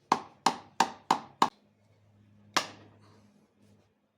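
Hammer blows: five quick strikes at about three a second, then a single strike about a second later and another at the very end.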